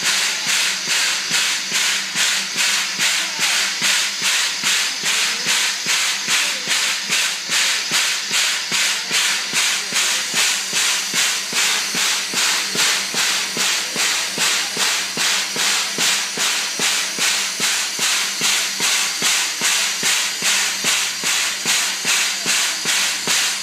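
1912 Lima three-cylinder Shay geared steam locomotive chuffing steam in a steady rhythm of about two beats a second, each beat a hissing puff. The sound cuts off abruptly at the very end.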